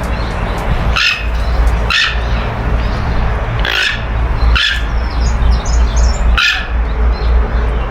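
Harsh, loud bird calls from captive birds, five of them a second or two apart, with faint high chirps in between, over a steady low rumble.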